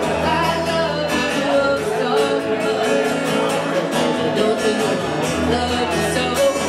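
Live band playing: a fiddle, a strummed acoustic guitar and a drum kit keeping a steady beat.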